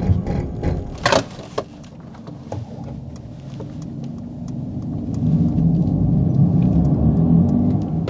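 Mercedes-AMG EQE 43's synthetic drive sound, a low hum that sounds like a spaceship or a video game, heard inside the cabin during a hard stop from 100 km/h. A thump comes about a second in; the hum then fades and swells again.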